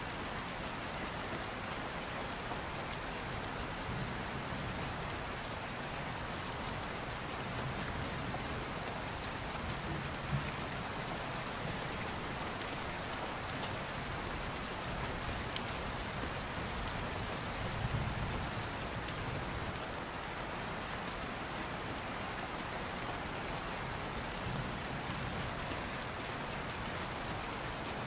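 Steady rain falling, an even hiss without pause, with a few faint ticks.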